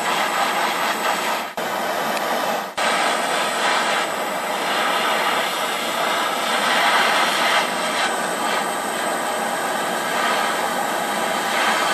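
Propane torch flame hissing steadily, with two brief breaks in the first three seconds.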